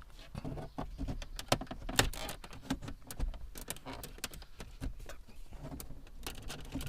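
Scattered light clicks and taps of hard plastic interior trim pieces on a Toyota Auris's dashboard console being handled and worked loose, with a couple of sharper clicks about one and a half and two seconds in.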